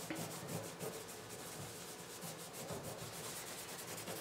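A wax stick and cloth rag rubbed back and forth into the grain of a rough-sawn wooden tabletop, a faint dry scrubbing. The wax is being worked into raised grain where a rag or sponge catches.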